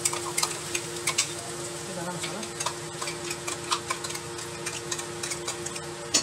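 Steel spatula stirring and scraping a masala paste as it fries in a non-stick kadhai: irregular scrapes and clicks over a steady sizzle, with a steady hum underneath.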